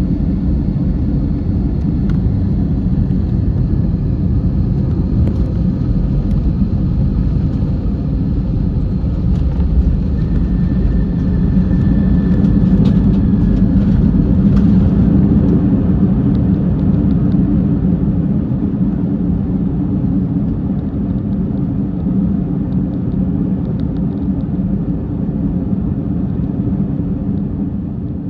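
Airbus A321 engines and airframe heard from inside the cabin during the landing: a loud, steady low rumble that swells about halfway through and eases off near the end.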